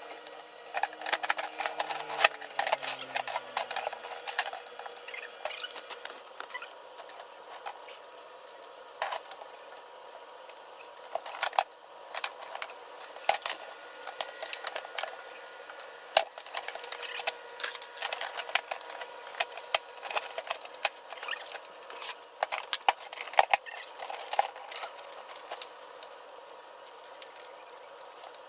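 Irregular clicks and knocks of refrigerator parts being handled and fitted back into place, with a faint steady hum underneath.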